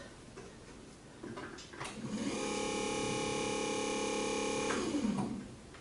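Minn Kota Maxxum 70 bow-mount trolling motor's electric motor, freshly fitted with a new armature and brushes and running without its prop. It spins up with a rising whine about two seconds in, runs steadily for a couple of seconds, then winds down with a falling pitch.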